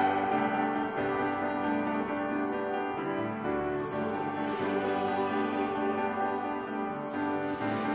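Instrumental interlude in a choral anthem's accompaniment, with sustained piano and string notes playing on while the choir rests.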